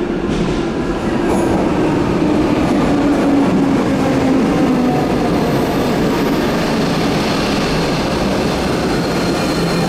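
Electric passenger train moving through the station: a steady rumble of wheels and running gear, with a motor whine whose pitch falls over the first few seconds. Higher-pitched whining tones come in near the end.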